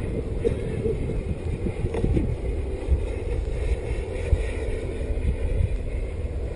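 Strong wind buffeting the microphone in gusts, over the faint, distant whine of an RC model jet's KingTech K60G turbine in flight, slightly stronger about four seconds in.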